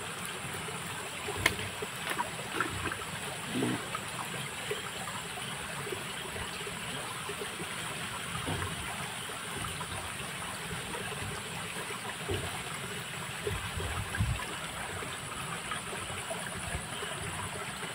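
A small stream flowing and trickling steadily, with a few faint clicks and knocks here and there.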